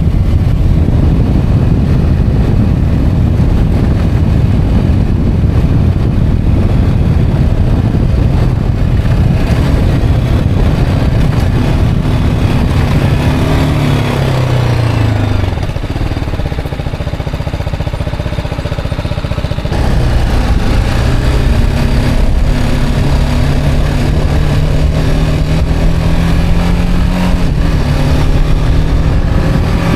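Motorcycle engine and wind rush heard from the rider's seat. About halfway through, the engine note falls as the bike slows and eases off, goes quieter for a few seconds, then climbs again as the bike accelerates, with a gear change near the end.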